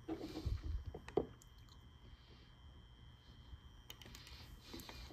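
Faint light clicks and taps of a wire and small hand tools being handled on a wooden work table while a wire end is tinned with solder. A few clicks come in the first second or so, then it is nearly still, with a few more clicks near the end.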